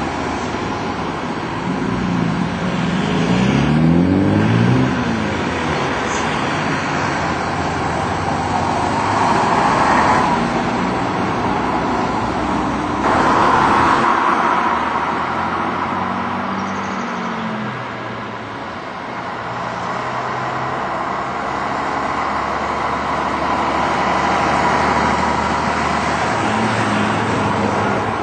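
Vintage double-decker buses' diesel engines pulling away and passing by, one engine's note rising as it accelerates a few seconds in, with car traffic going by as well.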